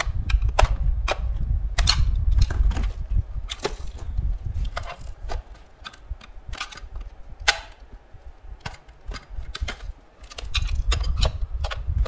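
Screwdriver prying at the seam of a plastic pest-repeller housing: a run of irregular sharp clicks and cracks of plastic, over a low rumble of the case being handled that is stronger at the start and near the end.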